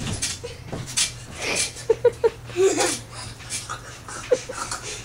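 Young boy panting hard and making breathy, wheezy voice noises and quick giggles while bouncing on a bed, with a burst of three short yelps about two seconds in.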